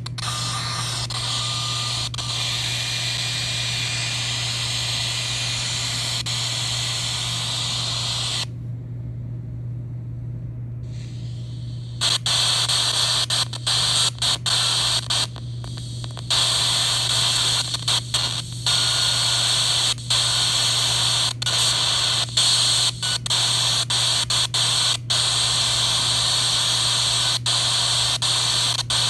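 FM receiver static from the phone's speaker: a steady hiss of untuned, demodulated radio noise from an RTL-SDR receiver as the frequency is swept across empty channels. The hiss goes quieter and muffled about a third of the way in, then comes back louder, broken by many short cut-outs. A low steady hum runs underneath.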